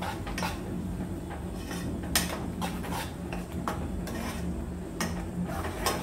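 A steel spoon stirring swollen vermicelli in a metal saucepan, clinking and scraping against the pan's sides and bottom in a string of irregular knocks.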